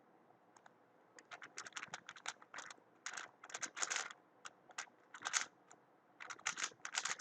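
Weilong WR M 2019 magnetic speedcube being turned at speed during a solve: rapid clusters of short plastic clicks and clacks, starting about half a second in.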